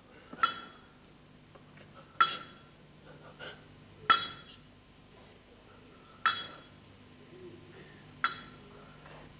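A small struck metal percussion instrument rings out five times, one stroke about every two seconds, each ring dying away within half a second.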